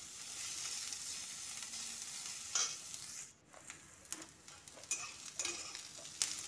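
Sliced onions and whole spices sizzling in hot oil in an aluminium kadhai while a steel spatula stirs them, scraping and knocking against the pan. The onions are being fried on a low-to-medium flame until brown.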